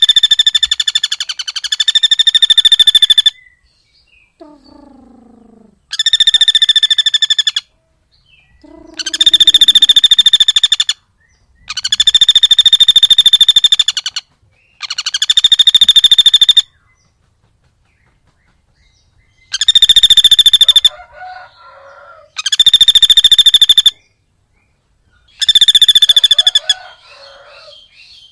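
Loud, rapid chattering call played in repeated bursts of about two seconds with short gaps, each burst a fast, even run of harsh notes. Fainter, lower falling calls sound between some bursts.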